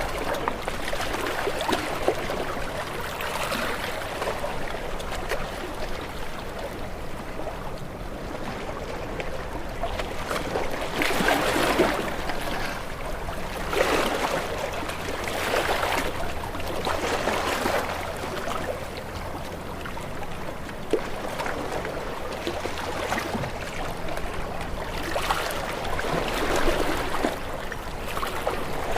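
Ocean waves breaking and washing against rocks: a continuous rush of water that swells into louder surges every few seconds.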